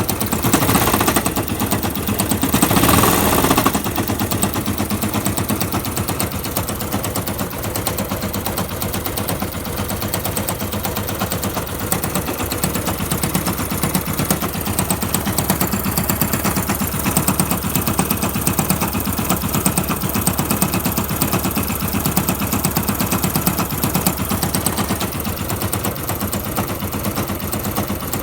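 Yamaha YBR125 fuel-injected single-cylinder engine running with a rapid, steady knocking, louder for the first few seconds. The knock remains after a new piston and barrel, and the owner suspects a bad engine.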